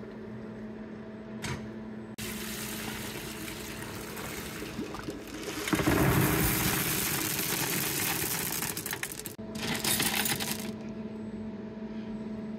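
Wet tumbling media and soapy water dumped out of a rotary tumbler barrel into a plastic bucket in a sink: a rush of water starts about two seconds in, the small media pieces clatter and rattle loudest through the middle, and there is a second short burst near the end, all over a steady low hum.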